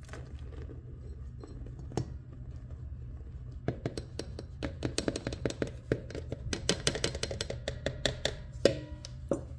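Flour poured from a container into a stainless steel stand-mixer bowl. From about four seconds in until near the end there is a quick run of light clicks and taps, over a steady low hum.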